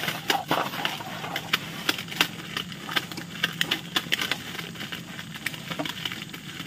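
Rapid, irregular crackling clicks over a faint, steady low hum.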